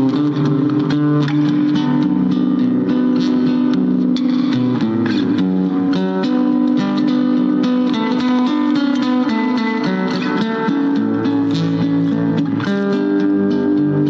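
Instrumental background music: a steady run of short plucked notes over sustained low notes that change every second or two.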